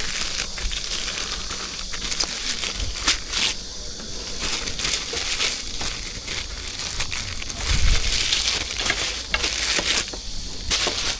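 Crinkling and rustling of packaging being handled, with irregular crackles and a louder stretch about eight seconds in.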